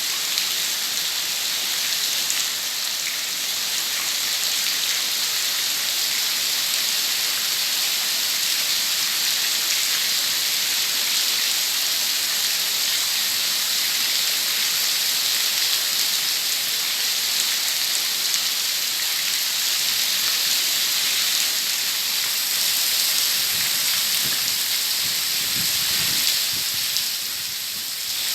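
Heavy autumn rain falling on fallen leaves: a steady, dense hiss of drops. A few faint low thumps come near the end.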